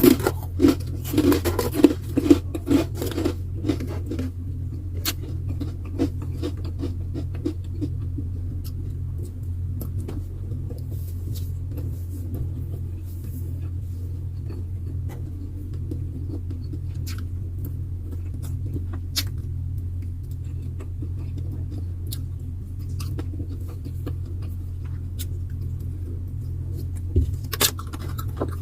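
Eating sounds: a burst of chewing and crackling in the first few seconds, then scattered small clicks, over a steady low hum.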